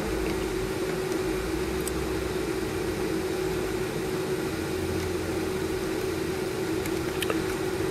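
Steady machine hum and hiss with one steady mid-pitched tone, and a couple of faint clicks.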